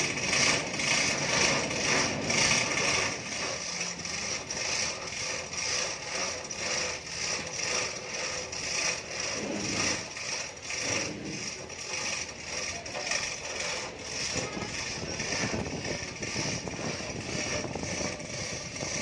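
Repeated metallic clicking from a hand-worked mechanism in the axle repair, about two to three clicks a second and steady throughout.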